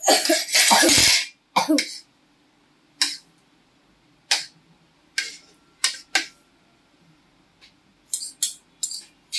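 Metal serving spoons clinking and scraping on a ceramic plate as biryani is served, in separate sharp clicks roughly a second apart. A loud, rough burst about a second long comes first.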